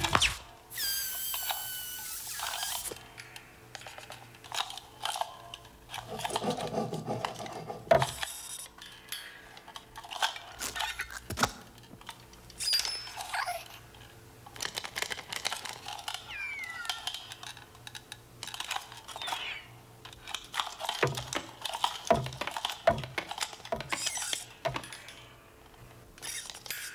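Cartoon sound effects for animated desk lamps and a rubber ball. About a second in there is a short hiss with falling squeaky whistles as the ball goes flat. Then come scattered squeaks, light metallic clanks and taps as the lamps move and hop, with one sharp knock about eight seconds in.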